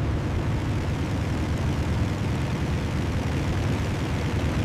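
Steady, low drone of propeller aircraft engines in flight, a deep rumble with a hiss over it.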